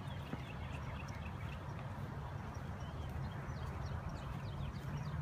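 Outdoor background: a steady low rumble with many short, high chirps scattered throughout.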